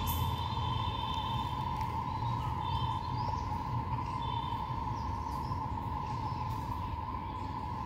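Outdoor ambience: a steady mid-pitched drone over a low rumble, with short high bird chirps three times in the first half.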